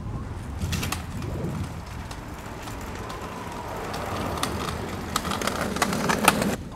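Kick scooter's small wheels rolling on rough asphalt, growing louder as it comes closer, with a run of sharp clicks and rattles near the end.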